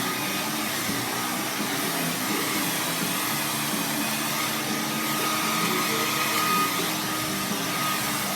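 Handheld hair dryer (blow dryer) running steadily: an even rush of blown air with a faint steady whine.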